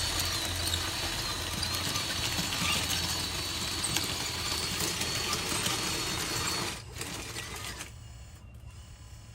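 Electric motors and gearboxes of radio-controlled construction models running with a steady high whine and gear chatter, dropping to a quieter level about two-thirds of the way through.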